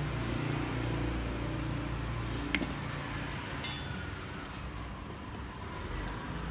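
Two sharp, light clicks about a second apart as metal tweezers and small parts are set down on the workbench, over a steady low background hum.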